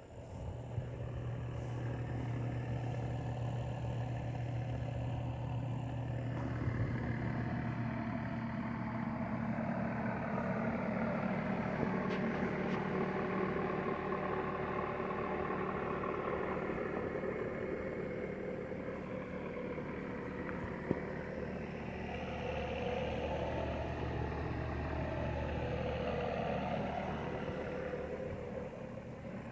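An engine running steadily with a low hum, its tone wavering slowly now and then.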